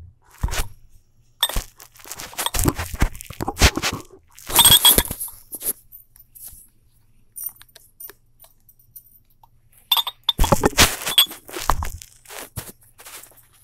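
Handling noise from a phone being moved about by hand: irregular rustles, scrapes and knocks on the microphone in bursts, with quiet gaps between.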